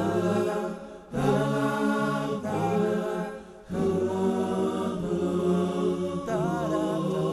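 Unaccompanied chanting voices with no instruments, sung in long held phrases that break off and start again about a second in and again near the middle.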